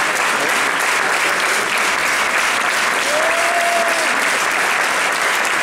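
Theatre audience applauding steadily after an orchestra performance. About three seconds in, one voice in the crowd gives a single drawn-out call that rises and falls.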